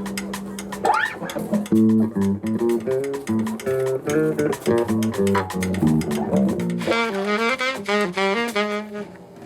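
A live band playing: a saxophone melody that slides upward about a second in and plays a quick run of notes near the end, over bass and guitar.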